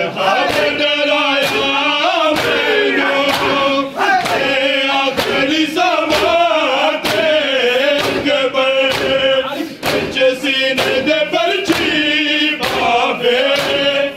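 A group of men chanting a Punjabi noha (mourning lament) in chorus while beating their chests in unison (matam). The slaps of hands on bare chests keep a steady beat of about two a second under the singing.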